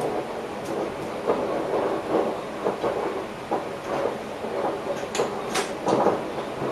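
Train running, heard from inside the driver's cab: a steady running noise with irregular knocks and clatter from the wheels on the track, and a few sharper clicks near the end.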